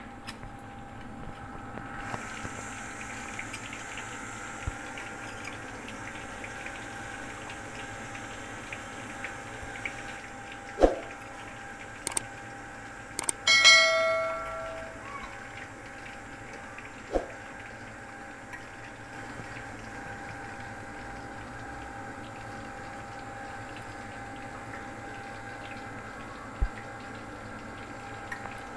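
A steady background hum with a few scattered faint clicks and knocks. About halfway through comes a subscribe-button sound effect: clicks followed by a bright bell ding that rings out for about a second.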